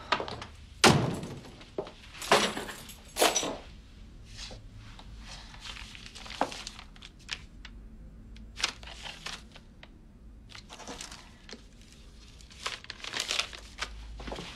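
A few loud knocks and thuds in the first few seconds, the loudest about a second in. Quieter taps follow, then a leather jacket rustles as it is taken off near the end.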